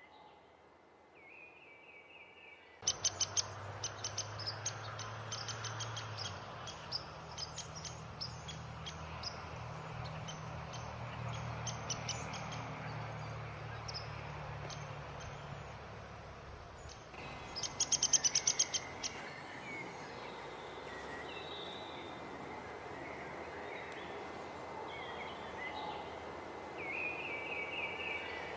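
Wild birds calling in a natural soundscape: quick series of sharp chip and chirp notes, with a dense burst of rapid notes about 18 s in and scattered chirps later. A low steady hum runs under the first half, and the sound changes abruptly twice, as if separate recordings were spliced together.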